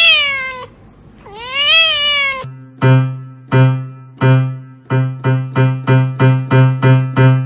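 A domestic cat meowing twice, each meow rising and falling in pitch. About two and a half seconds in, piano-like music begins with short repeated notes that get quicker.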